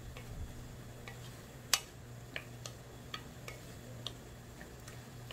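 Scattered sharp clicks and ticks, the loudest about two seconds in, from a nonstick frying pan of king oyster mushrooms reducing in a thick soy-sugar glaze while a wooden spatula works through them, over a steady low hum.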